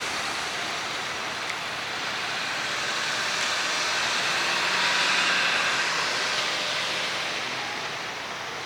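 A vehicle passing by: an even noise that swells to its loudest about five seconds in, then fades.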